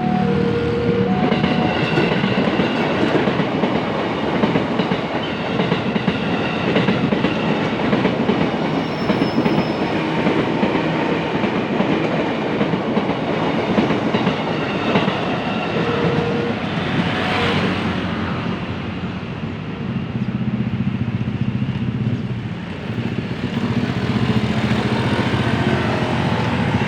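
KRL electric commuter train passing over a level crossing, its steel wheels clattering over the rail joints in a steady rumble. It eases briefly about three quarters of the way through, then picks up again.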